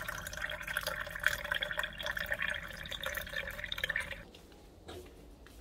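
A stream of water from a Samsung water-purifier tap pouring steadily into a glass mug holding a tea bag. The pour stops suddenly about four seconds in.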